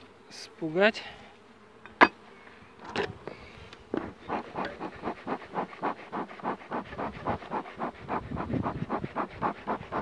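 Honeybees buzzing over an open hive, with a sharp knock about two seconds in and another a second later as the hive parts are handled; from about four seconds on, a rapid, even pulsing, some four or five beats a second.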